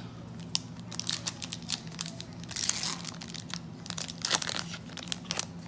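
Foil wrapper of a Topps Stadium Club trading card pack crinkling and tearing as it is pulled open by hand, a string of sharp crackles that grows busiest about two and a half and four seconds in.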